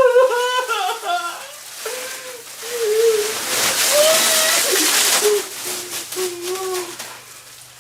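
A young child's high voice calling out in short phrases. About three seconds in comes a burst of splashing water lasting a couple of seconds, and the voice carries on through it.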